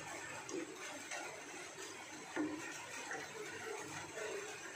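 Black plastic slotted spatula stirring chicken pieces in a milky broth in a stainless steel pan: soft sloshing of the liquid with a few light taps against the pan.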